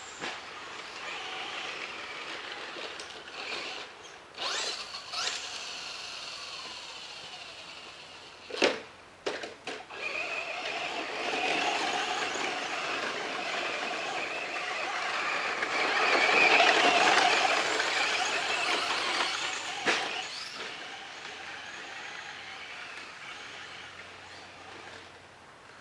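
Traxxas Slash RC short-course truck running on a dirt track, its whine rising and falling with the throttle and loudest about two-thirds of the way through. A few sharp knocks come partway through, and another near the end.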